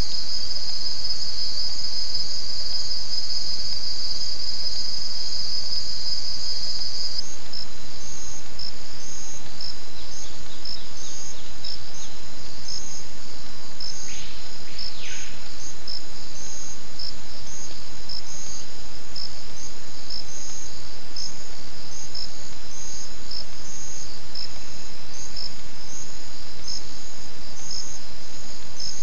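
Dense chorus of tropical forest insects: a steady high-pitched buzz that changes abruptly, about seven seconds in, to a rapid pulsing chirp. A brief falling call sounds about halfway through.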